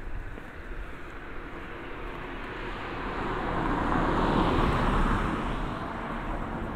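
A car driving past: engine and tyre noise that swells to its loudest about four to five seconds in, then fades away.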